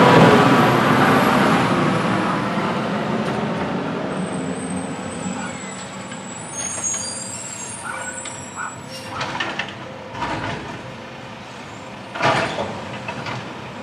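Garbage truck driving away, its engine sound fading steadily over the first several seconds. A few short knocks follow later, the loudest about twelve seconds in.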